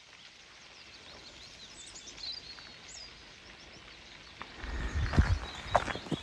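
Small birds chirping high and thin over a steady faint hiss of forest ambience, then a hiker's footsteps on the trail start about four and a half seconds in, crunching and thudding at walking pace.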